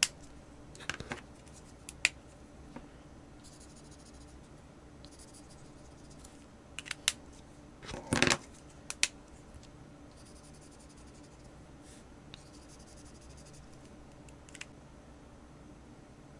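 Permanent marker tips scratching over a glossy plastic sheet in short colouring strokes, with sharp clicks and knocks as pens are picked up, capped and set down; the loudest knock comes about eight seconds in.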